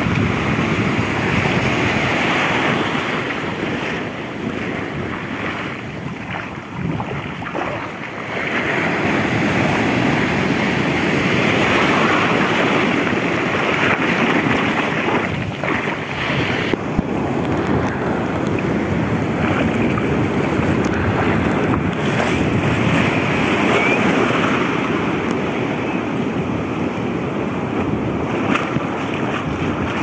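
Surf breaking and foam washing up the sand at the water's edge, a continuous rushing wash that dips around six to eight seconds in and swells again, with wind buffeting the microphone.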